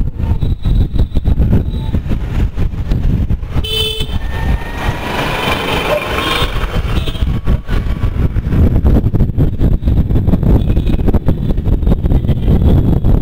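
Riding noise from a moving scooter in city traffic: a dense, buffeting rumble of wind and road noise with surrounding vehicles. A short vehicle horn toot sounds about four seconds in.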